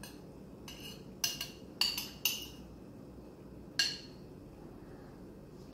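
Metal spoon clinking and scraping against a ceramic plate while spooning fried onions off it: a series of short, ringing clinks, several in quick succession between about one and two and a half seconds in, then another near four seconds.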